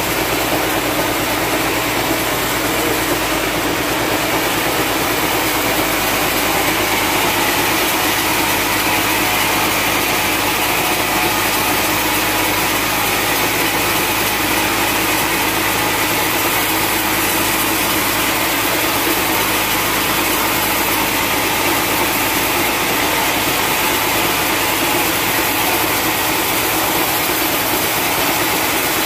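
Log band saw running steadily as it rips a long, dry, hard timber beam lengthwise, a loud, unbroken machine noise.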